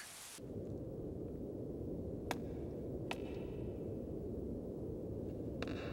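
Low steady rumble of an underground tunnel space, with two sharp clicks a little under a second apart and a short ringing click near the end.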